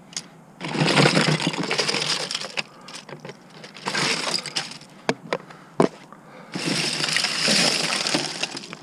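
Loose Lego bricks clattering as a bin of them is rummaged through: three long spells of rattling, with a few single sharp clicks in between.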